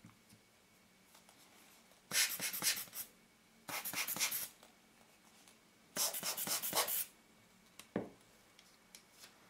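Hand-squeezed rubber air blower puffing dust off a camera lens element: three hissing puffs of air, each about a second long. A light click near the end.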